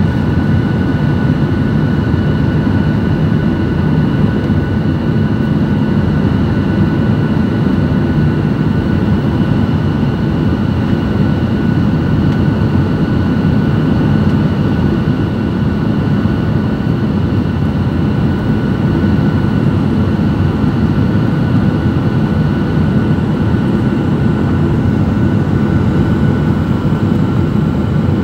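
Cabin noise of a jet airliner on final approach: a steady engine and airflow rumble with a thin, steady whine above it.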